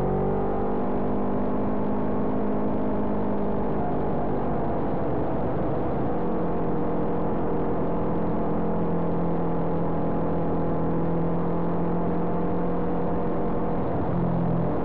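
Kawasaki Ninja 250 parallel-twin engine running at high revs under way. Its pitch rises in the first second, holds steady, then settles to a new steady note about six seconds in, over a constant low rumble of wind and road noise.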